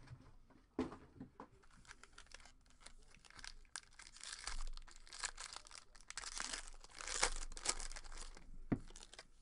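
Packaging of a sealed box of baseball cards crinkling and being torn open by hand, with sharp knocks about a second in and near the end.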